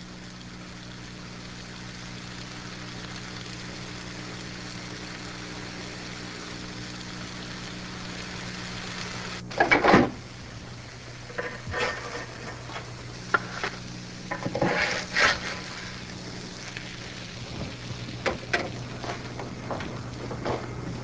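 Pancakes sizzling in a hot, greased skillet: a steady hiss. About halfway, a loud clatter, then scattered clicks and scrapes of a utensil against the pan.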